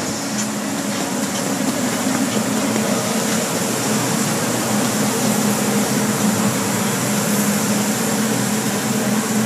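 Car wash air dryers running: a steady, even rush of blown air with a constant low hum.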